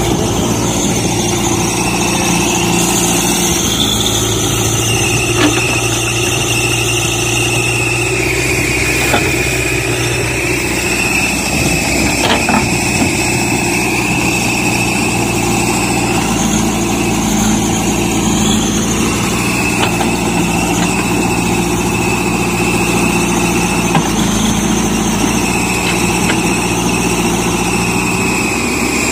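JCB 3DX backhoe loader's diesel engine running under load as the backhoe digs soil and lifts the bucket, the engine note shifting as the arm works, with a steady high whine over it.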